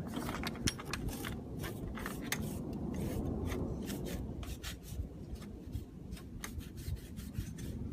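A rag soaked in rubbing alcohol rubbing and wiping over a freshly sanded hood vent part, with scattered light clicks and scratches, cleaning it so the adhesive bonds.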